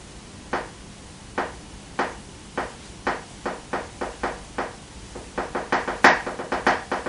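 A pen tapped against a tabletop in a steadily accelerating rhythm. The taps start about a second apart and end at around six a second.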